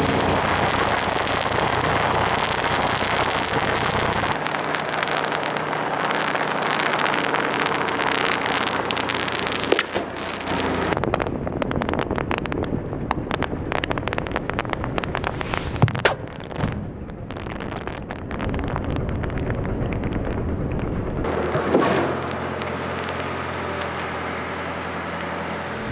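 Road roller's engine running steadily while its drum crushes bubble wrap, a dense crackle of bubbles bursting with a few louder single pops.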